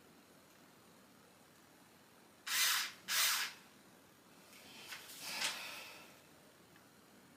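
Handheld power drill run in two short bursts, then a longer, softer run a couple of seconds later.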